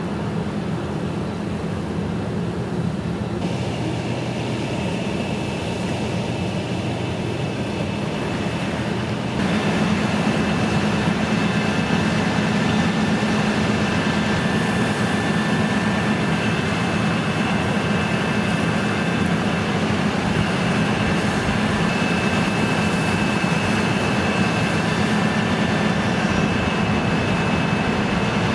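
A fire engine's engine running steadily, a low even drone with a thin high whine over it, growing louder about nine seconds in.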